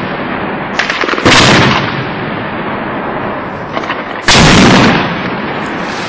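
Two loud blasts of weapons fire, about a second in and about four seconds in, each preceded by a few sharper cracks and followed by an echo that dies away.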